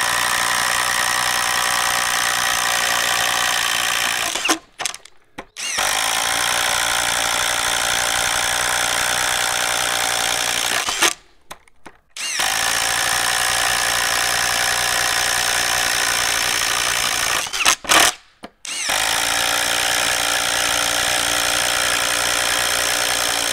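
Ryobi P239 brushless impact driver running at full speed with a 1-inch paddle bit, boring holes in a wooden board. There are four runs of about five seconds each, separated by pauses of about a second with short blips as the bit moves to the next hole, and the fourth run is still going at the end.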